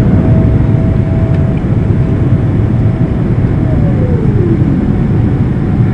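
Cabin noise of a Boeing 777-300ER in the climb: the loud, steady rumble of its GE90-115B engines and the airflow. A thin whine rides over it and glides down in pitch a little past halfway.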